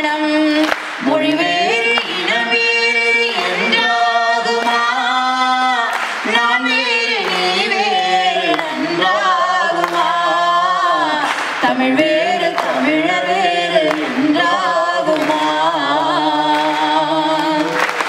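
A man and a woman singing a Tamil folk song together, unaccompanied, with long held notes.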